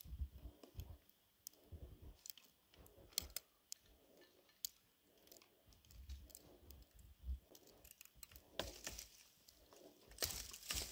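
Faint footsteps crunching through deep snow, with scattered small clicks and snaps. About ten seconds in come denser snapping and rustling as snow-covered shrub branches are grabbed.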